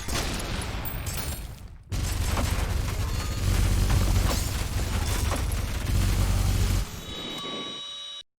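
Loud, distorted breathing blown straight into the microphone, a heavy rumbling rush of air that swells after about two seconds, eases off near the end and then cuts out suddenly.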